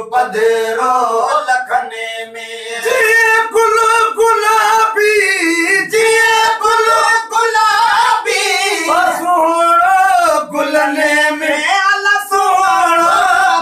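Men singing together unaccompanied, a slow chant with long wavering notes that glide up and down.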